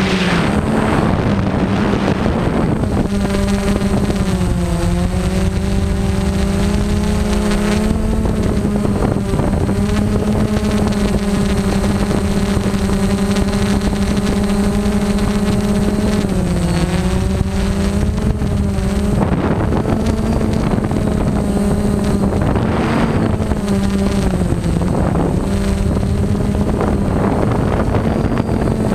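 Multirotor drone's propellers and motors humming steadily in flight, the pitch dipping briefly a few times as the motors adjust, with wind rushing over the microphone.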